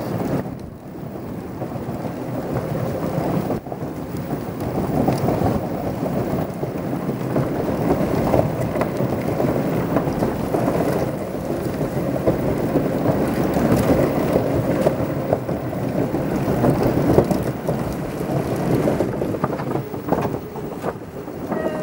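Rumbling wind buffeting the microphone while riding along a wooden boardwalk, mixed with wheels rolling over the planks, with a few faint ticks.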